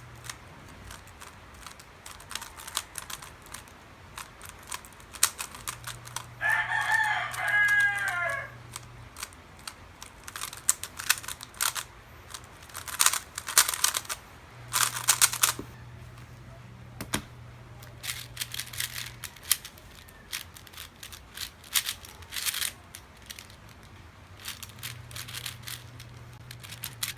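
A rooster crows once, a call of about two seconds some six seconds in. Quick runs of sharp clicking come and go throughout.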